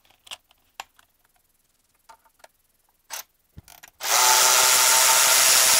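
A few light clicks and taps of metal tools, then about four seconds in a cordless electric ratchet runs steadily, backing out a bolt in the BMW M54 engine's cylinder head.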